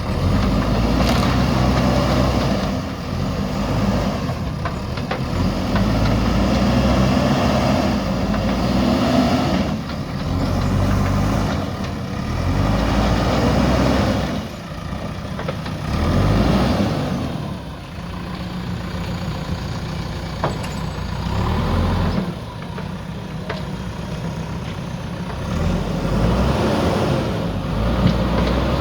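JCB backhoe loader's diesel engine running under load, its revs rising and falling every few seconds as the machine moves over rough ground.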